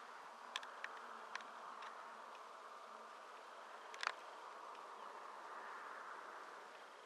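Faint, steady outdoor ambience with a buzzing hiss. A few light clicks come in the first second and a half, and a sharper one about four seconds in.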